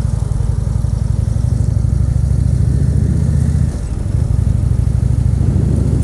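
2014 Indian Chief Vintage's Thunder Stroke 111 V-twin engine running as the bike rides along, a steady low pulsing rumble that dips briefly about halfway through and then carries on.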